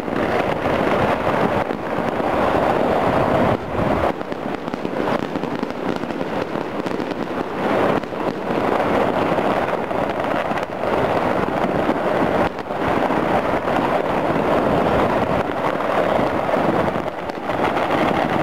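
Many distant fireworks and firecrackers going off across a city at once, their popping and crackling merging into a continuous din, with brief dips every few seconds.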